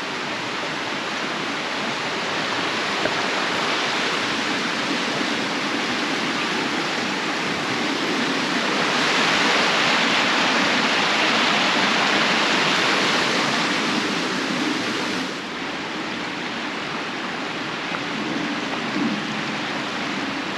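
Rushing water of the gill below Hardraw Force waterfall, a steady noise that grows louder about nine seconds in and drops back a little about fifteen seconds in.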